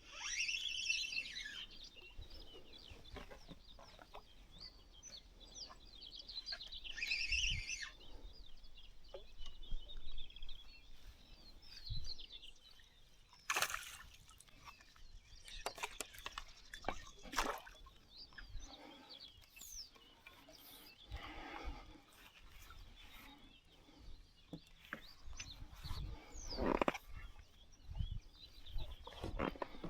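Birds calling and singing, in short high chirps and trills, with a few sharp knocks scattered through.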